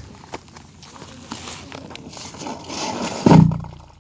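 Rustling and scraping from hands working plastic sacking and gravel at the rim of a blast hole, with a few light clicks and a loud, low thump a little after three seconds in.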